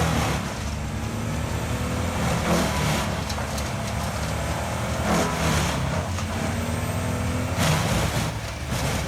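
A wood chipper's engine runs steadily under load, with several louder rushes of noise as wood is fed through and chipped.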